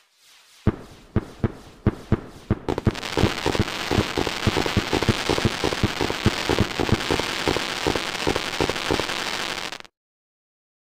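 Fireworks going off: a handful of sharp bangs, about two a second, starting about a second in, then a dense crackle of rapid pops and bangs that cuts off suddenly near the end.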